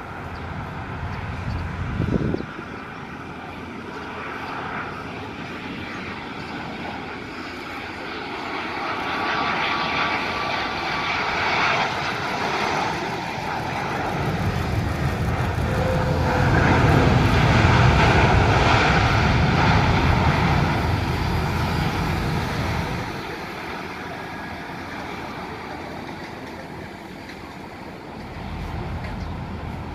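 Boeing 777-300 jet engines during a landing: a steady jet rumble that builds to its loudest a little past halfway, a deep low roar after touchdown typical of reverse thrust, then eases off. A car passes close by briefly near the start.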